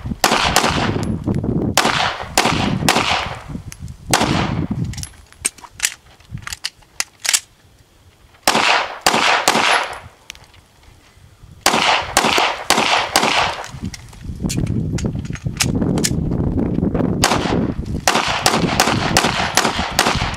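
Semi-automatic pistol fired in quick strings of shots, each shot ringing out briefly. The strings are broken by pauses of a few seconds, the magazine changes of a 21-round casino drill fired seven rounds per magazine.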